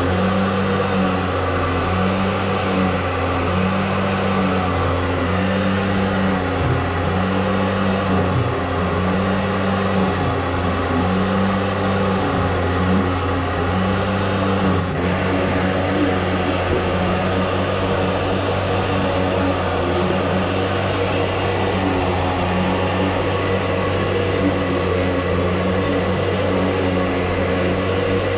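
A motor running steadily with a low hum and a higher tone that pulses on and off about once a second.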